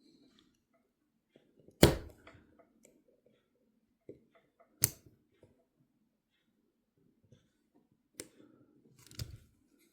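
Sharp metallic clicks of pliers and a tiny C-clip against the metal parts of an Abumatic 150 fishing reel while the clip is pressed onto a post of the oscillation plate. Four separate clicks, the loudest about two seconds in.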